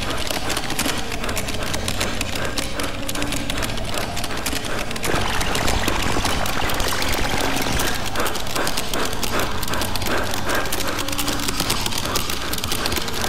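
Fast typing on a computer keyboard: a dense, continuous run of key clicks. About five seconds in it grows louder and rougher, with a regular clacking rhythm later on.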